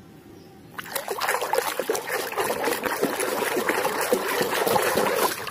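Water splashing and sloshing in a plastic tub as a small plastic toy is swished about by hand to wash off mud. It starts about a second in.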